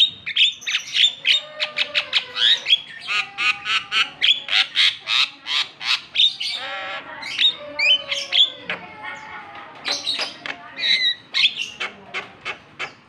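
Javan myna singing: a fast, unbroken run of sharp chattering and squeaky whistled notes, several a second, with a harsher rasping stretch about halfway through.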